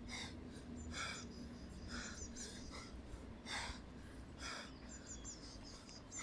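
A man breathing hard through the mouth as he works through a set of squats under a 36 kg load, a breath coming about every second.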